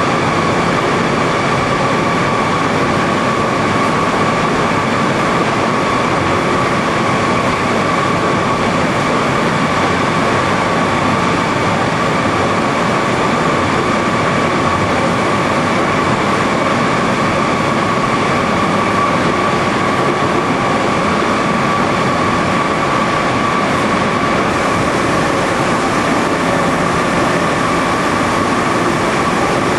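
Fruit-processing line machinery running: electric motors and pumps giving a loud, steady drone with a constant high whine.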